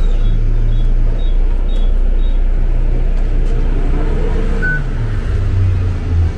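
City bus engine idling at a stop with its door open: a loud, steady low hum that shifts lower near the end. A short beep sounds about two-thirds of the way through.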